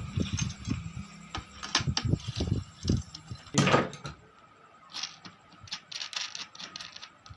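Clicks, knocks and scrapes of a Bajaj Bullet Farrata fan's metal housing being handled as its back panel is taken off, with one louder scraping clank about three and a half seconds in and lighter taps after it.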